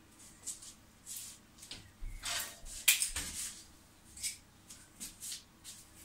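Hands handling and twisting insulated hookup wires together: a run of short rustles and scrapes, with one sharp click about three seconds in.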